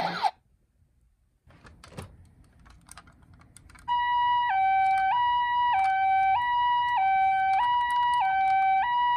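A few faint clicks, then, about four seconds in, a toy ambulance's electronic two-tone siren starts, switching steadily between a higher and a lower note about every half second in the Japanese ambulance "pii-poo" pattern.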